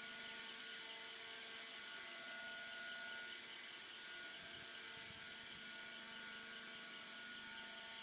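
Faint, steady machinery hum with several steady tones, from the rail transfer cart carrying the excavator as it moves along the track.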